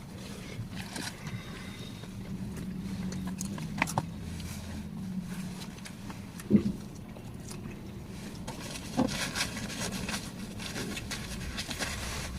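Steady low hum of a vehicle inside the car cabin, with rustling and handling noises and one sharp knock about halfway through.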